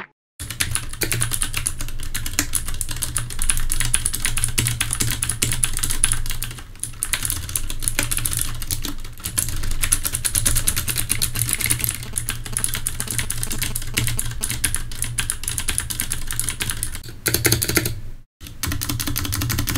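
Continuous fast typing on an ROG Falchion mechanical keyboard with Cherry MX Blue switches: a dense run of crisp clicky keystrokes, breaking off briefly near the end.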